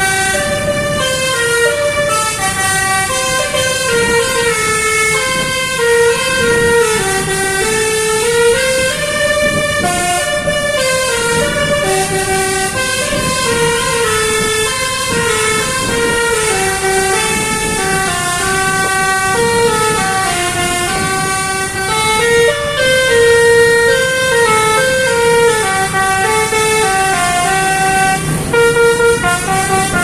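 A bus's Basuri telolet musical horn playing a koplo-style tune: a continuous run of short horn notes stepping up and down in a melody, without a break.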